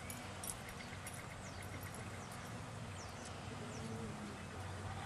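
Quiet outdoor ambience: a few faint bird chirps, heard as short falling whistles about three seconds in, over a low steady hum.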